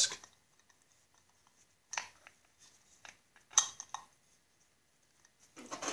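Light metallic clicks and clinks of a metal bushing being fitted into the bearing of a Snapper walk-behind mower's drive disc, in two short spells about two seconds in and again around three and a half seconds in.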